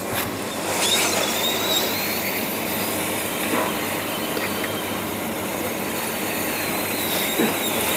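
Hot air rework station blowing a steady rush of air with a faint high whine, heating the solder on an LED TV panel board to reseat a three-pin diode.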